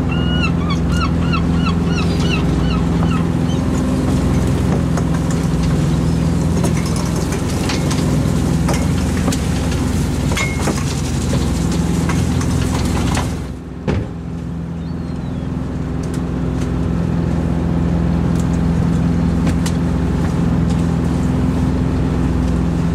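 Inshore fishing boat's engine running steadily as the gill net is hauled, with a run of gull calls in the first few seconds and scattered clicks and knocks of net and fish being handled. The sound drops out for a moment about 13 seconds in.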